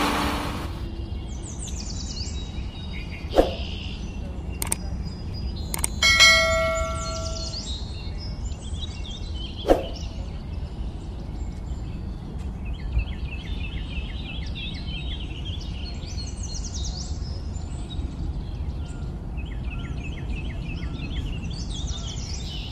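Outdoor ambience: birds chirping repeatedly over a steady low rumble, with a few sharp clicks and one bell-like ring about six seconds in.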